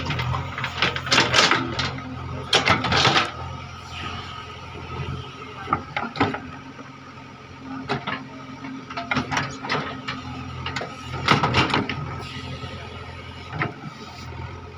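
JCB 3DX backhoe loader's diesel engine running steadily, broken by a series of short, loud noisy bursts from the machine at work.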